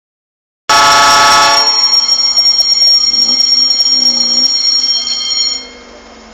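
Diesel locomotive's air horn sounding one long blast of about five seconds, a loud multi-note chord that starts abruptly and cuts off near the end, leaving a faint steady rumble.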